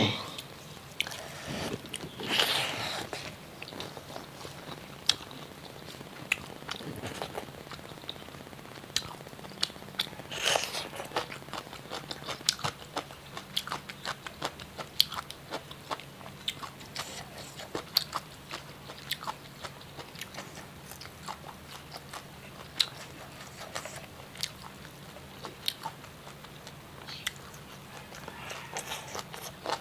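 A person eating close to the microphone, biting and chewing crunchy food, with many short, irregular mouth clicks and crunches and a couple of louder crunches near the start.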